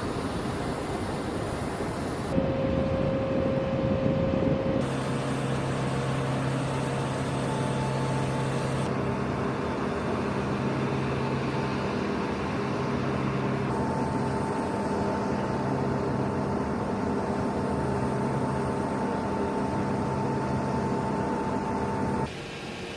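Military transport jet's turbofan engines running, a steady rush with several held humming tones. The sound changes abruptly several times, as separate recordings cut into one another.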